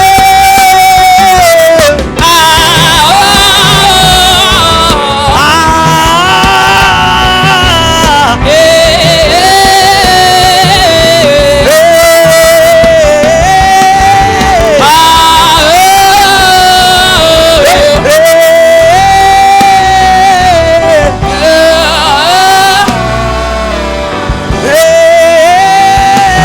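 Live gospel worship music: a singing voice holding long notes that slide between pitches, over a church band.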